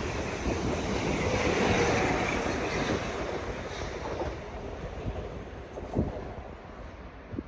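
A passing train's rumble and wheel clatter, loudest in the first few seconds and then dying away, with wind buffeting the microphone. A single sharp knock about six seconds in.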